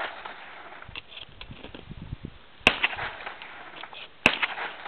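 12-gauge semi-automatic shotgun firing two shots about a second and a half apart, each followed by a short ringing echo.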